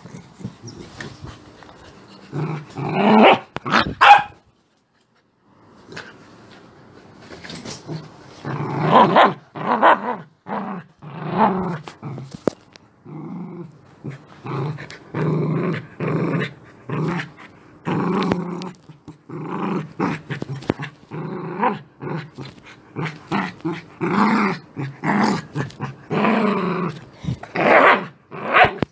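A beagle growling angrily, with short barks, in a long run of separate outbursts broken by a brief silence about four seconds in.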